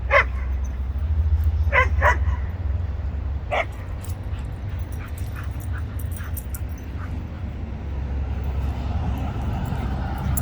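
A dog barking four short, sharp times in the first few seconds, two of them close together, over a steady low rumble.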